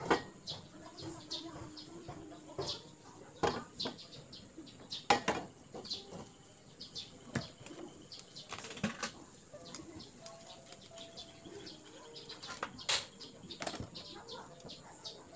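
Kitchen handling noises: irregular clicks, taps and rustles as a bottle of cooking oil and a ceramic frying pan on a gas stove are handled, with a faint steady high tone underneath.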